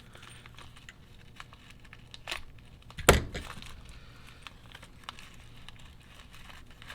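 Plastic kit parts bags crinkling as they are handled, with small clicks of parts and one sharp knock about three seconds in.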